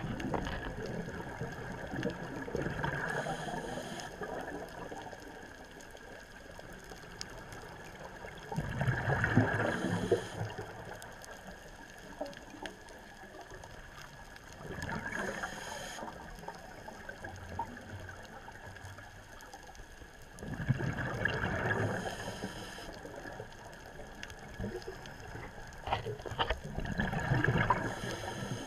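Underwater sound of a scuba diver breathing on a regulator: a bubbling rush of exhaled bubbles about every six seconds, with faint crackling between the breaths.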